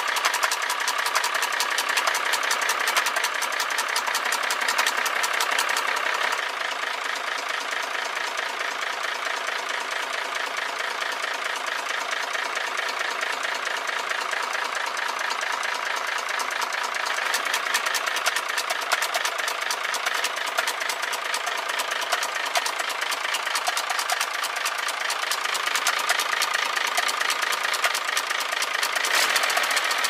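Hino J08C inline-six diesel truck engine idling with a rapid, even knocking. The knock comes from the No. 1 cylinder, where the top of the piston has broken.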